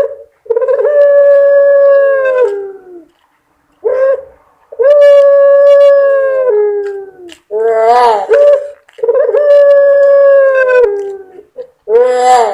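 Puter pelung (long-voiced domestic barbary dove) cooing its drawn-out 'crying' call: three times a short rising note followed by a long held coo of about two seconds, repeating about every four seconds.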